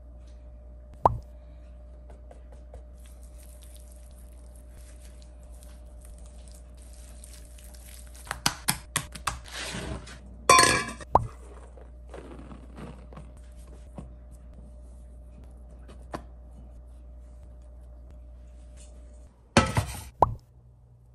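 Kitchen handling sounds: seasoning powder shaken in a fine patter over raw chicken thighs, scattered taps and clicks, and a brief clatter about halfway through. Near the end a metal frying pan knocks down onto a glass-top hob a couple of times.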